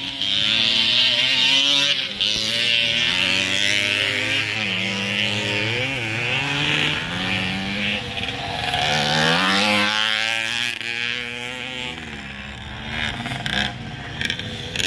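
Several small motocross dirt bikes running on the track, their engine notes overlapping and rising and falling as the riders accelerate and ease off, a little quieter toward the end.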